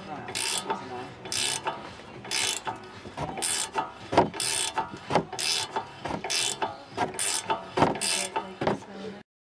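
A ratchet clicking in repeated strokes, about one a second, with sharper knocks between them, as it undoes a brake caliper bolt. The sound cuts off suddenly near the end.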